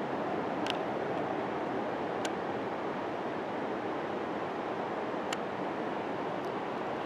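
Waterfall: the steady, even rush of falling water, with three faint short clicks in the first half and near the end.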